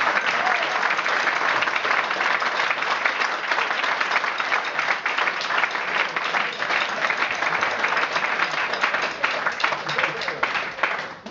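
Audience applauding steadily after a drum performance, with some voices in the crowd.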